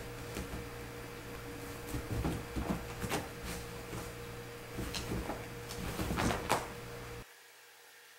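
Kittens scrambling on a sheet-draped bed, with claws catching and fabric rustling and soft knocks as they climb and tussle, over a steady low hum. Everything drops off abruptly about seven seconds in.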